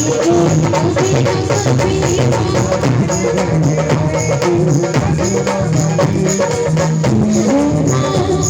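Live Hindi devotional bhajan music: a melody over a steady beat of drum and jingling tambourine-like percussion.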